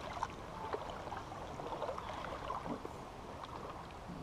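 River water running over rocks: a steady rush dotted with small splashes.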